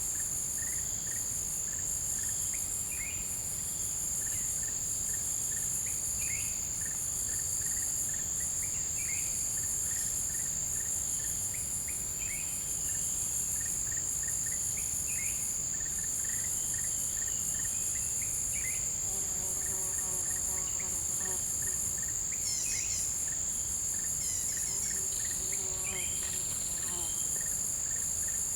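Forest insect chorus: a steady high-pitched drone with a shriller pulsing layer above it, and short high chirps scattered throughout. A lower call with a few repeated notes comes in about two-thirds of the way through.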